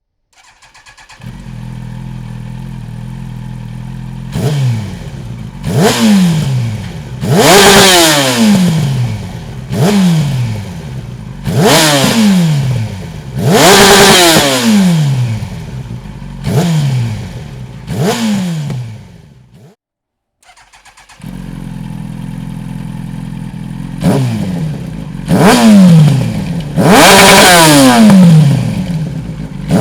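Yamaha YZF-R1 RN09's 998 cc inline-four with a Dominator aftermarket exhaust silencer, idling and then revved in a series of sharp throttle blips, each rising in pitch and falling back to idle. The sound cuts out briefly about two-thirds of the way through, then the engine idles again and is blipped several more times.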